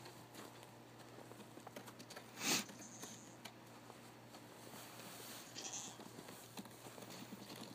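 Goat bleating: one short, loud call about two and a half seconds in.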